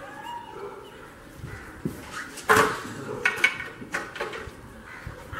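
A sharp knock of a cricket ball striking, about halfway through, followed by a few smaller knocks and clatters.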